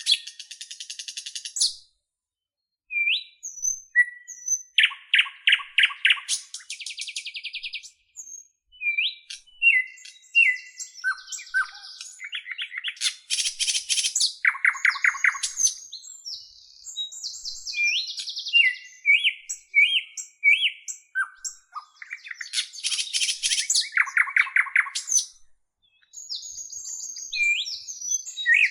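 A bird singing a long, varied song of rapid trills, buzzy phrases and short whistled chirps, broken by a few brief pauses.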